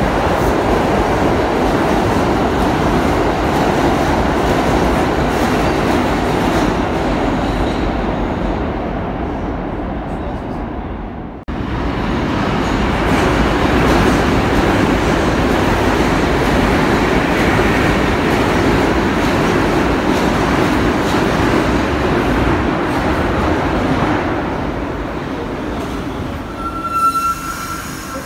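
New York City subway trains running through the station: a steady loud rumble and rattle of steel wheels on rail. It breaks off abruptly about eleven seconds in and carries on with another train, easing off near the end, where a brief high tone sounds twice.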